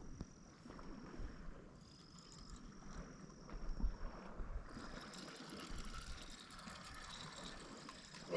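Steady outdoor ambience of wind and sea wash, with a low rumble of wind on the microphone; faint rustling and small ticks come in about five seconds in.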